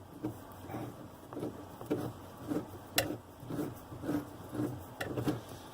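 Drain nut under a bathroom sink being tightened in repeated turns, a rhythmic scraping about twice a second with a couple of sharp clicks, to snug the new drain and seal it.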